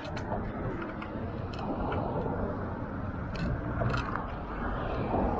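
Street traffic and road noise heard while riding a scooter through city streets: a steady low rumble with a few brief clicks and rattles.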